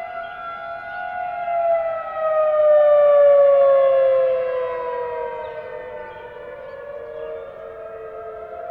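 Outdoor civil defense warning siren wailing during a test, heard from a distance. Its pitch slides slowly down and the sound swells to its loudest about three seconds in, then fades, while a second tone begins rising about six seconds in.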